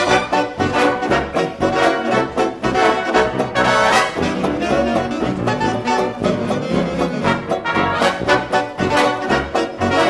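Brass-led jazz dance music, trumpet and trombone over a steady beat, in the style of a 1920s Charleston number.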